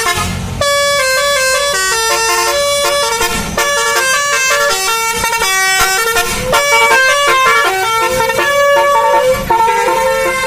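Bus 'telolet' basuri musical air horn playing a tune: a run of short horn notes stepping up and down in pitch, one after another, with a brief break just after the start.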